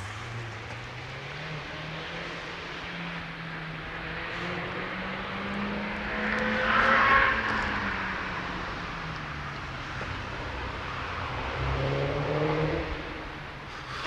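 A motor vehicle's engine passing by, growing louder to a peak about halfway and falling in pitch as it moves off, with a second engine swell near the end.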